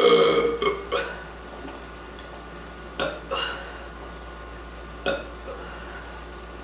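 A long, loud burp from drinking carbonated root beer dies away in the first half second, followed by a handful of brief, sharper sounds a second or two apart.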